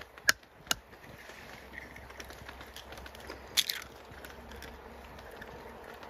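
Wood campfire crackling: three sharp pops in the first second and a short cluster of pops midway, over a low steady hiss.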